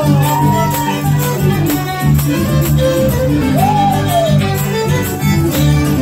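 Live folk music: a gato, with a violin carrying the melody in sliding, bowed notes over guitar accompaniment and a steady rhythmic beat.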